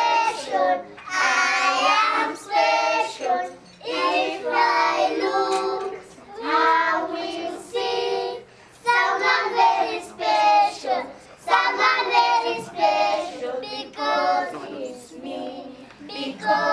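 A group of young children singing a song together, in phrases of a second or two with short breaks between them.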